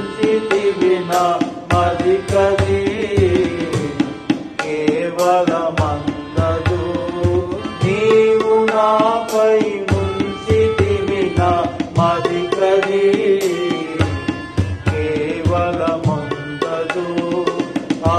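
A man singing a Telugu hymn of repentance with a steady hand-drum rhythm accompanying him.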